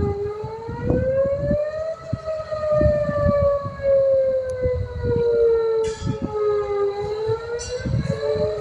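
Outdoor tornado warning siren wailing, its pitch rising for a second or two, sinking slowly for several seconds, then rising again near the end. An uneven low rumble runs underneath.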